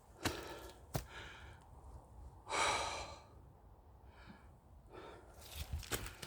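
A hiker breathing hard on a climb, with one loud heavy exhale about two and a half seconds in and softer breaths around it, and footsteps on the trail.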